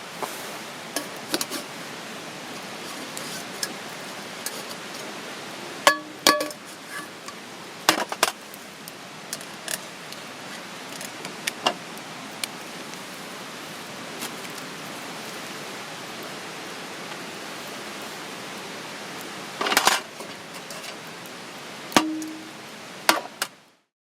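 Metal camp cookware clinking and tapping now and then over a steady hiss, with a short ringing clink about six seconds in and another near the end. The sound cuts off abruptly just before the end.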